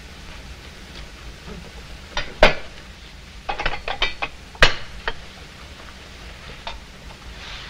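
A fireplace poker and fire irons clinking and knocking against the metal grate as the fire is poked: scattered sharp metallic clanks, the loudest about two and a half seconds in and again just before the five-second mark, with a run of lighter clinks between them.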